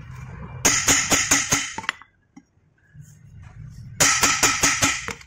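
Hammer striking the steel yoke of a Mahindra Bolero propeller shaft, seating the new universal joint: two quick runs of about half a dozen ringing metal blows each, one about a second in and one near the end.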